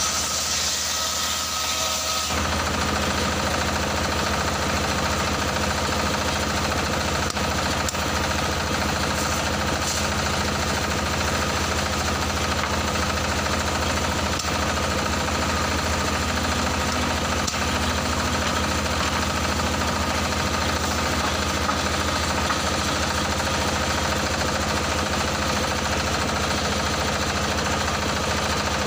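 Stationary single-cylinder diesel engine running steadily, driving a circular saw blade that rips a long wooden plank. The sound thickens about two seconds in.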